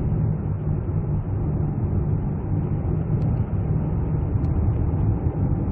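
Steady in-cabin driving noise of a 2010 Hyundai Equus 3.8 with a V6 engine cruising on the road: an even low rumble of engine and tyres heard from inside the car.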